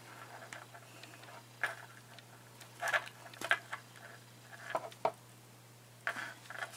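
Faint handling noise from hand-crocheting: scattered soft rustles and light taps as the yarn and hook are worked to slip stitch and tie off.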